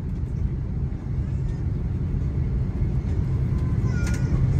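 Airliner cabin noise as the plane rolls along the runway after landing: a steady low rumble of engines and wheels, heard from inside the cabin and growing slightly louder near the end.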